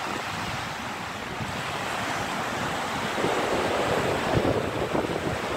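Rough Baltic Sea surf washing onto a sandy beach, heard through strong wind. The wind buffets the microphone more heavily from about three seconds in.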